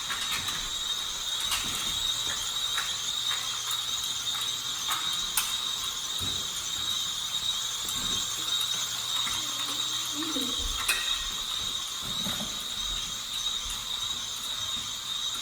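Small electric motor mechanism of a beetle-fishing game running, a steady high-pitched whine with scattered clicks and rattles as the toy rhinoceros and stag beetles move around.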